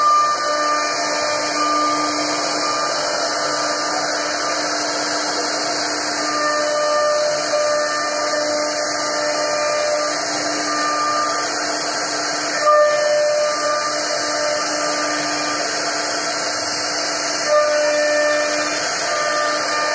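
CNC router spindle carving a wooden board: a steady whine over a hissing cutting noise. There are two brief louder surges, about 13 and 17.5 seconds in.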